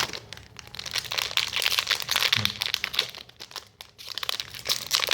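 Foil trading-card pack wrapper crinkling as the pack and its cards are handled, in two bouts of dense crackling with a short lull between.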